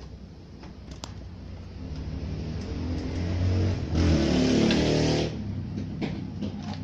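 A motor vehicle engine running and revving, growing louder to a peak about four to five seconds in, then dropping off suddenly. A few light clicks sound near the start and end.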